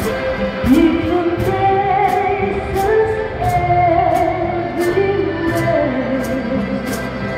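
Music with a singing voice over a steady beat, with regular percussion hits about twice a second.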